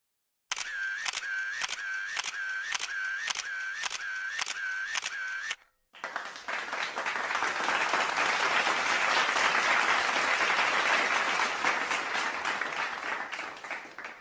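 A quick run of evenly spaced clicks, about three a second, for some five seconds. After a short gap comes a spell of applause that swells and then slowly fades.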